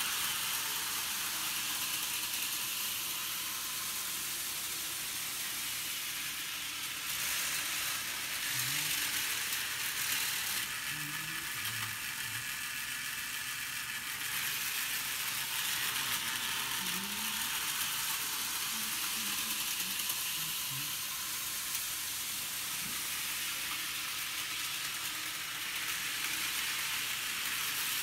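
HO-scale Thomas model locomotive running around the track with its electric motor whirring and the cars' wheels rolling on the rails, a steady mechanical rush.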